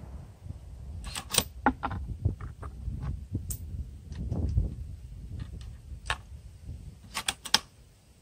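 Sharp metallic clicks and clacks of a Savage bolt-action rifle's bolt being worked between shots, spread over several seconds with a quick cluster of clicks near the end.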